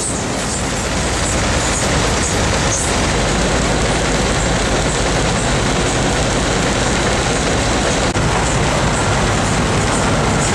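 Fines clean-up plant for trommel fines running: a steady, dense mechanical din of conveyors and separating machinery, with material pouring off a conveyor onto a stockpile.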